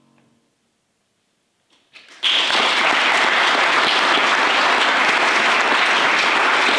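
The last keyboard chord dies away into a brief silence, then a few claps come just before audience applause breaks out about two seconds in and carries on steadily and loudly.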